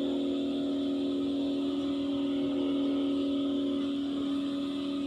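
A steady hum of a few held low tones, unchanging throughout.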